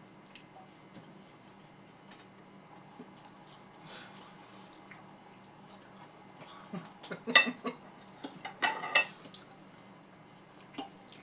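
Forks and knives clinking and scraping against plates, sparse at first, then a cluster of sharp clinks about two-thirds of the way in and two more just before the end.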